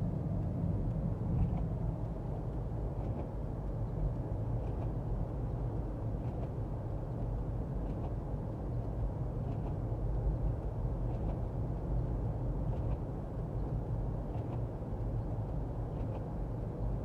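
Steady low rumble of a car driving, engine and tyre noise heard from inside the cabin, with a faint light tick about every second and a half.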